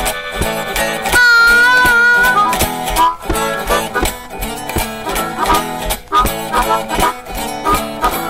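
Blues band playing an instrumental passage: a harmonica holds one long, slightly bending note about a second in, then plays short choppy phrases over guitar and a steady drum beat.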